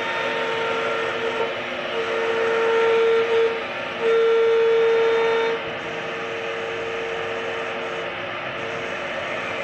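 CNC router spindle running with a steady high whine over the rushing noise of machining wood. The whine swells loudest twice, about two and four seconds in, then settles to a steady level.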